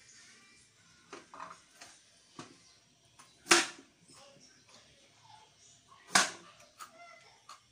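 Kitchen knife chopping on a cutting board: irregular light taps, with two loud, sharp knocks about three and a half and six seconds in.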